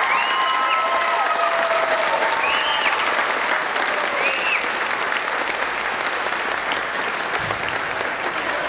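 Audience applause from a gym crowd of children and adults, with a few high voices heard over it in the first four seconds or so.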